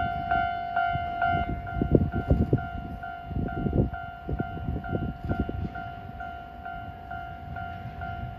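Railway level-crossing warning bell ringing in an even repeating ding-ding pattern, about three strikes a second, over a low, irregular rumble that eases off about halfway through.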